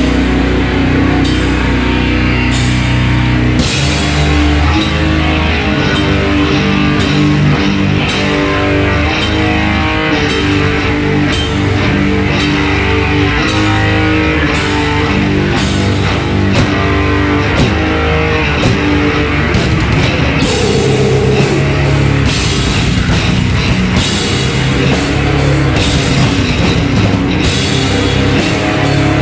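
Heavy metal band playing live: distorted electric guitars, bass guitar and a drum kit, loud and continuous. The deepest bass drops away and the riff changes about four seconds in.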